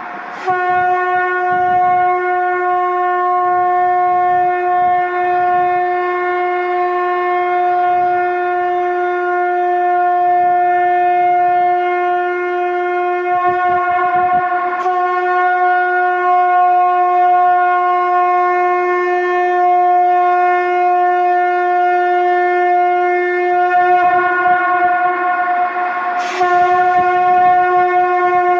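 Shankh (conch shell trumpet) blown in long, steady, held blasts on one pitch. A new blast starts with a sharp attack about half a second in, again around halfway, and again near the end.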